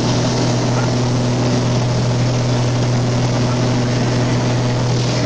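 Light aircraft's piston engine and propeller droning steadily at cruise, heard from inside the cabin, with a low even hum under a broad rushing noise.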